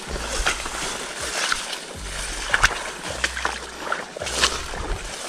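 Tall swamp grass swishing and rustling against a person wading through it on foot, in short repeated brushes, with wind rumbling on the microphone.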